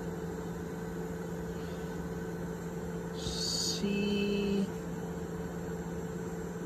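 Steady electrical and fan hum of a Longer LK1 3D printer at the start of a print. About three seconds in there is a short hiss, then a low steady whine lasting under a second.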